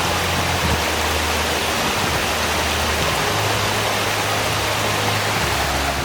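Waterfall: a steady, loud rush of falling water, with low held notes underneath.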